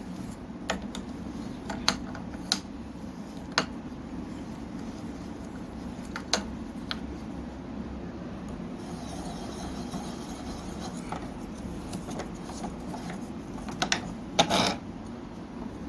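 Hand-made quick-release vise being unscrewed by hand: scattered small clicks and knocks from the screw and its nuts, with a cluster of louder knocks near the end, over a steady low hum.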